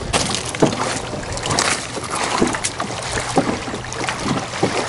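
Small waves lapping and slapping irregularly against a beached Hobie Pro Angler kayak's hull at the water's edge, over wind noise on the microphone.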